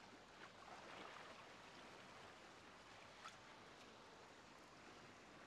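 Faint, steady wash of ocean waves, with a single soft click about three seconds in.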